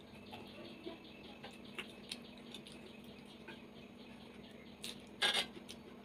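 Soft chewing and small wet mouth clicks of someone eating rice and boiled vegetables by hand, then a short rustling, scraping noise about five seconds in, the loudest sound, as fingers work the rice on the plate.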